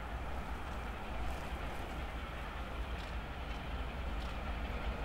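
LNER A4 Pacific steam locomotive and its train approaching at speed, a steady rushing noise that slowly grows louder.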